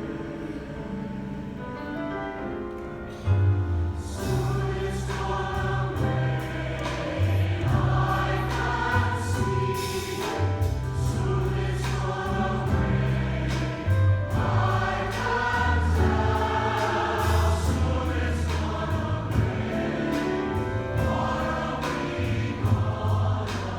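A choir singing a song, softly at first and then louder from about three seconds in, when deep low notes join.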